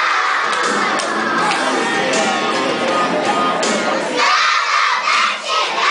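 A large group of young children singing a song together, loudly and partly shouted.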